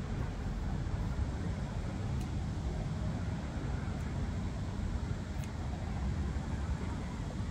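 A steady low outdoor rumble, with three faint sharp clicks from garden scissors snipping water spinach stems.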